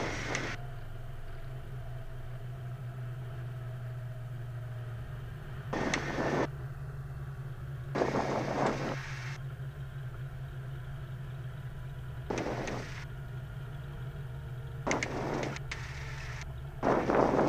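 Cessna Skylane's piston engine as a steady low drone heard through the cockpit intercom, broken by several short bursts of hiss.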